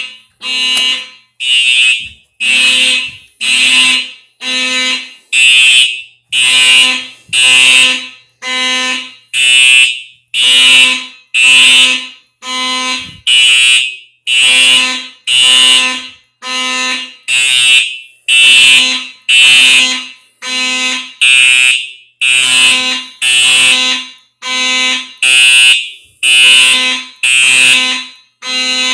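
Fire alarm horn sounding in even pulses about once a second, each pulse a harsh buzzing tone that fades slightly before cutting off: a fire alarm system in alarm.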